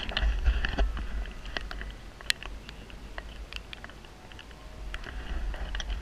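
Low rumble of wind buffeting and handling noise on a handheld camera's microphone, heaviest in the first second, with scattered light clicks and knocks.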